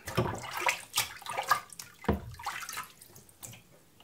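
Water splashing and trickling in short uneven spurts as a sharpening stone is rinsed, tailing off near the end.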